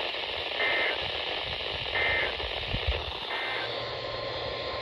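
Emergency Alert System end-of-message data bursts from a NOAA Weather Radio broadcast: three short warbling two-tone digital squawks about 1.4 s apart over steady radio static, marking the end of the severe thunderstorm warning. A steady high alert tone begins right at the end.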